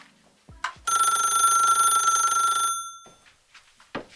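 A phone ringing: one ring of about two seconds that starts about a second in, with a short click near the end.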